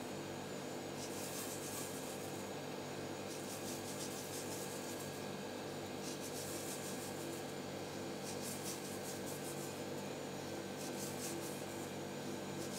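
Semolina grains sprinkled from a small dish into the empty metal multicooker bowl, a faint intermittent patter that comes and goes three times, over a steady low hum.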